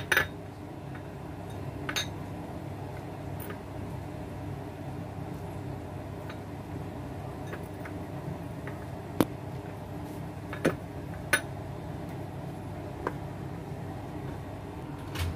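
A steady low hum of room noise, broken by about six short, sharp clinks and clicks of kitchen utensils and dishes handled around a plastic mixing bowl.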